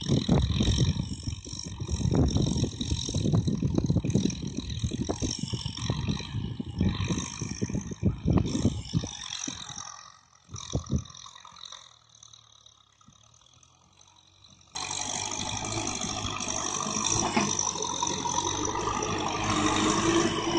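Tractor engines at work ploughing. For about the first half an engine is heard with irregular low buffeting, then the sound drops nearly to quiet for a few seconds. After that a Kubota M6040's four-cylinder diesel engine cuts in abruptly, running steadily and close under ploughing load.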